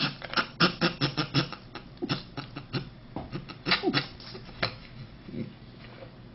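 A man's stifled, closed-mouth laughter: a quick, irregular run of snorts and squeaks through the nose and lips that dies down after about five seconds.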